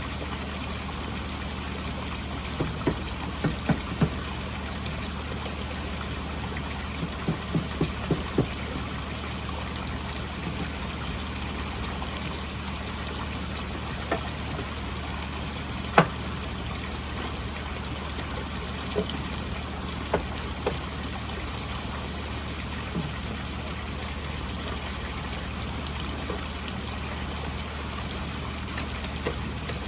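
Steady trickle of running koi pond water, with short sharp knocks over it: a run of a few about three seconds in, a quick run of five around eight seconds, and scattered single knocks after, the loudest about sixteen seconds in.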